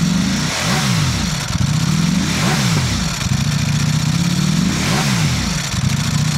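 Ducati Panigale V4 SP's 1103 cc V4 engine revved in three quick throttle blips, the pitch rising and falling back each time to a steady running note in between.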